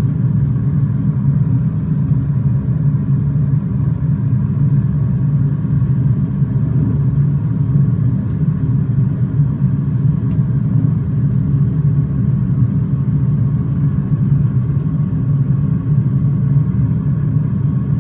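Steady low rumble of simulated airliner engine and airflow noise in an Airbus A320 flight simulator cockpit during a descent, even in level throughout.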